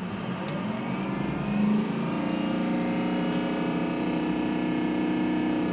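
Ford 6.0 Powerstroke V8 turbodiesel revved from idle: the engine note rises over the first two seconds, then holds steady at raised rpm. The throttle is raised to build injection control pressure on an engine with a leak in its high-pressure oil system, and the pressure coming up shows the high-pressure oil pump is fairly good.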